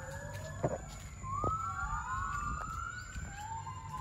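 Gibbons calling: long whoops that overlap one another, each rising and then falling in pitch.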